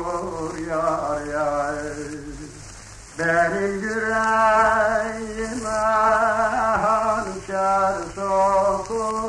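Male folk singer's voice on a 1937 wax disc recording, singing a Harput türkü in long, wavering, ornamented notes. A held note fades out about two and a half seconds in, and a new phrase starts about half a second later. A steady hiss of the old disc runs underneath.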